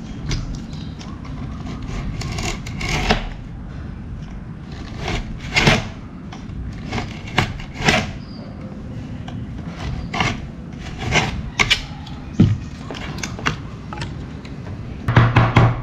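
Snap-off utility knife trimming excess edge banding along a laminated plywood panel: irregular short scrapes and clicks of the blade along the edge. Background music with a steady beat comes in near the end.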